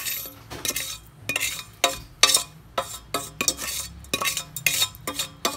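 Metal cooking pot clinking and scraping as leftover undissolved rock salt is scraped out of it into a plastic container of brine and duck eggs. The sharp strikes come about two to three a second, each with a short metallic ring.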